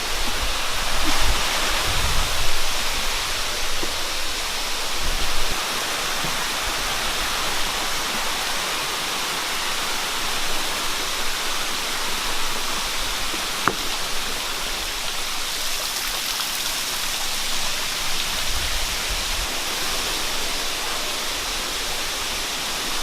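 Waterfall water rushing in a steady, dense hiss, with low rumbles on the microphone in the first few seconds and a single sharp click about fourteen seconds in.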